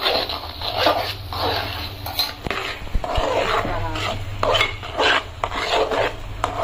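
A metal spatula scrapes and stirs a thick ragi-flour and jaggery dough in a steel pot, about two strokes a second. The mixture is being stirred continuously on a low flame until the ghee separates.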